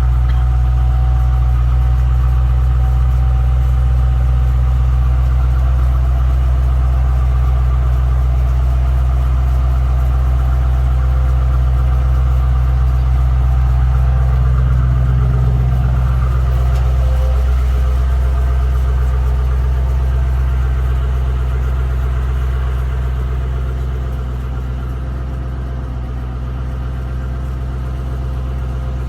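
2007 Mustang Shelby GT-H's 4.6-litre V8 idling steadily, easing a little quieter about twenty seconds in.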